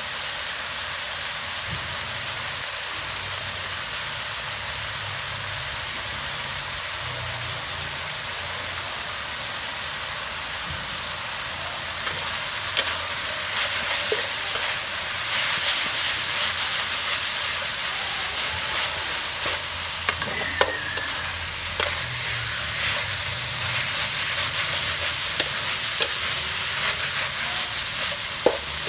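Chicken and shredded lemongrass sizzling as they fry in a metal wok. From about twelve seconds in, the sizzle grows louder as a metal spatula stirs and tosses the food, with scattered clinks of the spatula against the pan.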